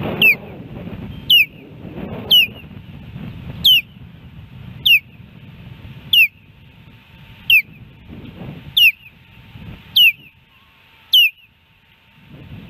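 Osprey alert calls: a series of about ten sharp, downward-slurred whistles, roughly one a second, the alarm an osprey gives at the nest when it senses a threat.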